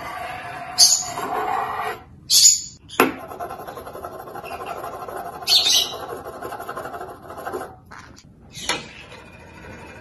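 Green-cheeked conure giving four short, shrill chirps a couple of seconds apart, with a single sharp click about three seconds in, over a steady background noise that stops near the end.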